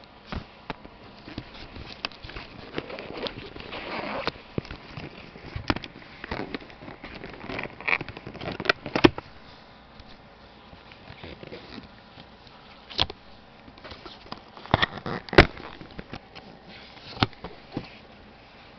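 Cardboard product box being opened and its contents handled: irregular rustling and scraping with scattered sharp clicks and snaps.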